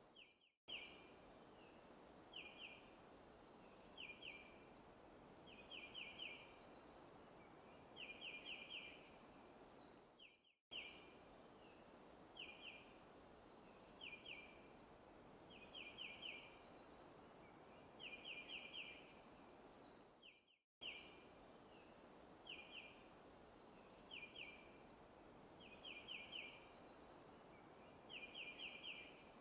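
Faint forest ambience loop: a bird chirping in short bursts of one to four quick high notes every second or two over a soft steady hiss. The loop cuts out briefly and restarts about every ten seconds.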